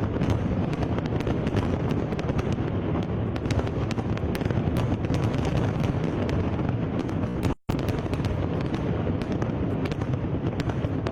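Fireworks display going off without a break: a continuous low rumble of bursts under dense, rapid crackling pops. The sound cuts out completely for a split second about two-thirds of the way through.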